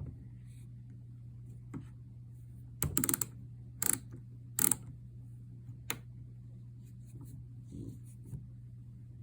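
A few sharp clicks and clacks of small hard parts being handled, clustered between about three and six seconds in, over a steady low hum.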